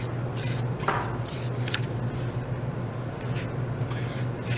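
Marker tip scratching across paper in several short strokes, over a steady low hum.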